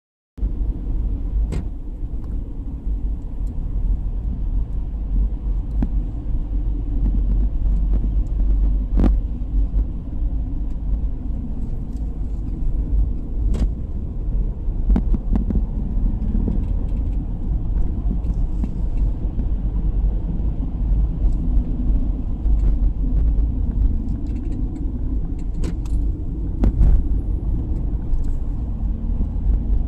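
Car driving on a road, heard from inside: a steady low rumble of engine and tyres, with a few short sharp knocks here and there.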